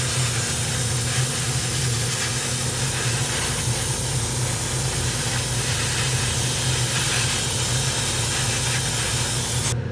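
Airbrush spraying paint onto plastic model parts, a steady hiss of air that cuts off just before the end. A steady low hum runs underneath.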